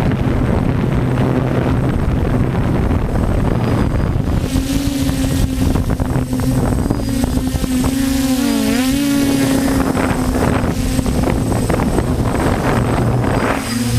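DJI F450 quadcopter's brushless motors and propellers buzzing steadily in flight, with wind buffeting the microphone. Around eight to nine seconds in the motor pitch dips and comes back up as the drone corrects.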